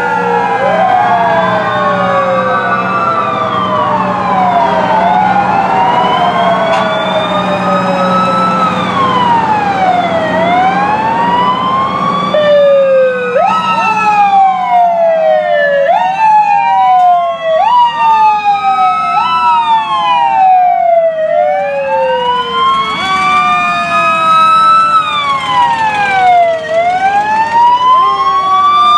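Several fire truck sirens wailing at once, their rising and falling tones overlapping, with a few quick short wind-ups in the middle. A low steady hum runs underneath in the first half.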